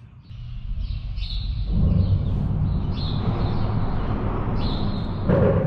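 Road traffic on the bridge overhead: a vehicle's rumble swells up about a second and a half in and carries on loud and steady. Small birds chirp now and then over it.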